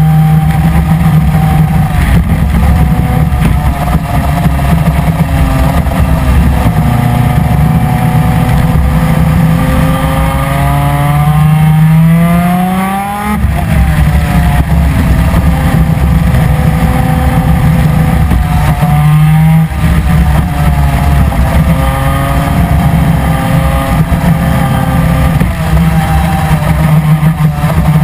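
Superkart's 250 cc two-stroke twin-cylinder PVP engine running hard at racing speed. Its note climbs steadily to a peak about thirteen seconds in, drops sharply, then carries on with further rises and short dips.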